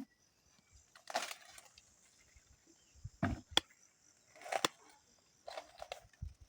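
Dry corn plants rustling and cracking as ears of corn are snapped off the stalks by hand, in about five separate bursts, one with a sharp snap near the middle.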